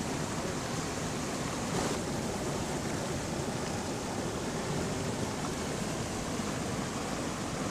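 Steady rushing of flowing water, an even noise that holds at the same level throughout with no distinct events.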